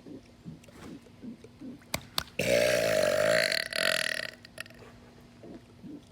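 A man's long, loud burp lasting about two seconds, starting about two and a half seconds in, with two short clicks just before it.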